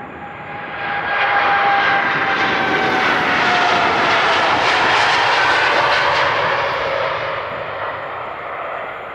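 Jet airliner's engines at takeoff power as it climbs out past. The engine noise swells about a second in, holds loud, then fades over the last couple of seconds, with a fan whine that slowly drops in pitch as the aircraft passes.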